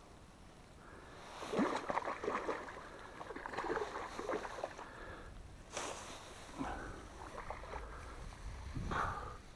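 Water splashing in irregular bursts as a koi carp, shot with a bowfishing arrow, thrashes at the surface; the splashing starts about a second in and is loudest over the next few seconds.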